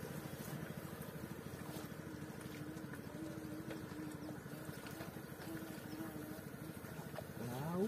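Small engine running steadily, its hum wavering slightly in pitch.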